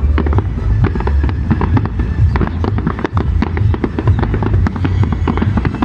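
Fireworks display in full barrage: many rapid, overlapping bangs and crackles from aerial shells bursting, over a continuous low rumble.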